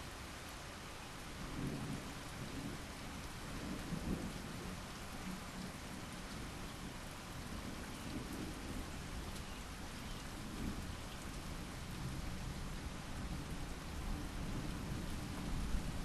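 Steady rain hissing, with low thunder rumbling beneath it in several swells, the first about a second and a half in and the strongest around four seconds and near the end.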